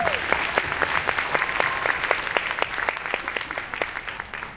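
Audience applauding, a dense patter of claps that dies away toward the end.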